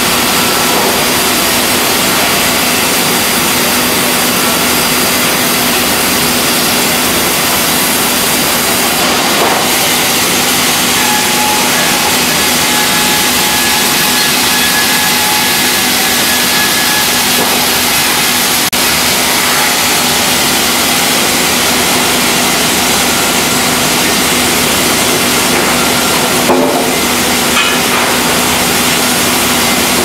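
SERRA Bavaria SL130i horizontal band sawmill running and cutting a log: a steady dense saw noise over a constant machine hum, with a short knock near the end.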